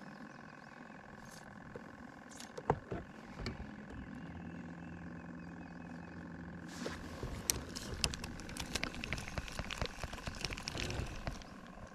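Bow-mounted electric trolling motor running with a steady high whine. From about seven seconds in, many sharp clicks and knocks come over it.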